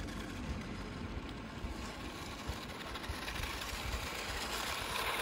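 Small electric motors and gearing of toy-grade 4WD remote-control rock crawlers running as they drive over gravelly asphalt toward the microphone, getting gradually louder as they approach, with low wind rumble on the microphone.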